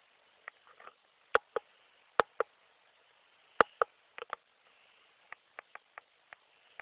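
A run of sharp clicks or taps: several loud ones in close pairs over the first four seconds, then a quicker string of lighter ticks about five to six and a half seconds in.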